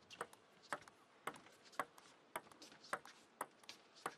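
Table tennis rally: the plastic ball clicking crisply off the table and the players' bats in a fast back-and-forth exchange, about two clicks a second.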